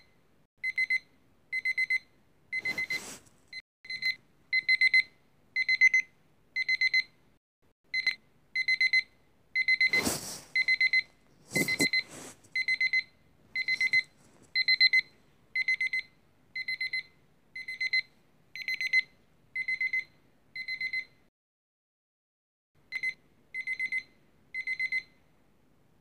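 Digital countdown timer's alarm beeping at zero: a quick, high-pitched cluster of beeps about once a second. A few knocks from handling the timer come in between. The beeping pauses for about two seconds near the end, sounds three more times, then stops.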